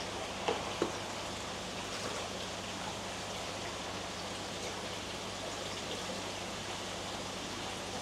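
Steady rush of running pond water over a low, even hum, with two light knocks about half a second in.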